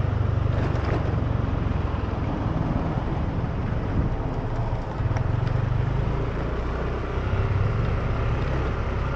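Motor scooter riding along a road: a continuous low rumble of its small engine and the ride, swelling and easing in strength.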